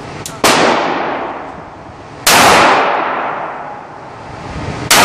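Sig Sauer P238 .380 ACP pistol fired three times, about two seconds apart, each shot followed by a long echo dying away off the concrete walls of an indoor range; the third shot lands right at the end.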